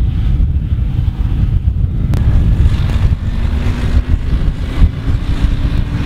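Ford 7610 tractor's diesel engine running as it pulls a grain trailer, under heavy wind rumble on the microphone. A faint engine note rises slightly over the last few seconds, and there is a single sharp click about two seconds in.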